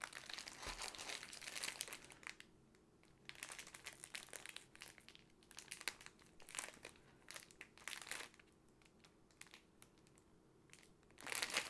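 Clear plastic wrapping around bags of diamond painting drills crinkling as it is held and turned in the hands, in irregular spurts with short pauses between them.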